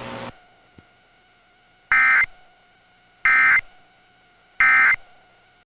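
Three short bursts of Emergency Alert System SAME digital data tones, the end-of-message code that closes the alert broadcast. Each burst is a harsh buzzy tone about a third of a second long, about a second and a half apart, after a steady hiss that cuts off just after the start.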